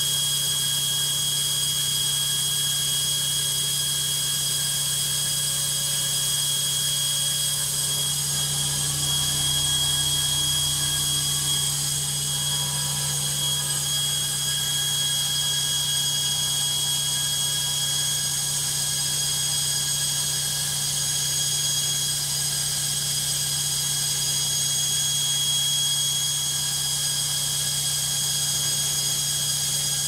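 Logik front-loading washing machine on its spin cycle: a steady, high-pitched motor whine over a low hum, running evenly throughout.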